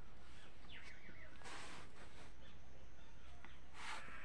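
Small birds chirping in short, quick calls, with two brief scraping hisses, about a second and a half in and again near the end, and a steady low hum underneath.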